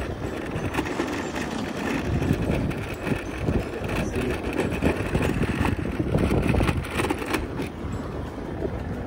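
Wind rumbling on the microphone with road noise from riding an e-bike along a city street, a steady low rushing with no engine note.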